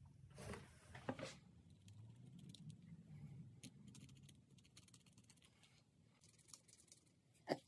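Faint scratching and small clicks of a pencil point rubbed around the rim of a coin, with one sharper tick near the end.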